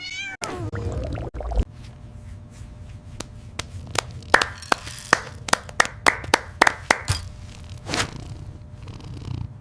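A short wavering cry at the start, then a long run of sharp slaps and pops, several a second: cats slapping and squishing slime.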